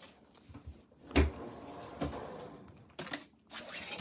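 Close handling noises: a loud knock about a second in, a short stretch of rustling, then a few sharp clicks.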